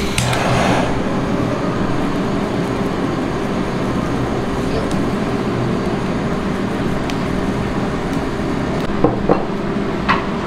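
Handheld kitchen blowtorch running with a steady rushing hiss as it sears salted skin-on raw fish. A few short knocks near the end.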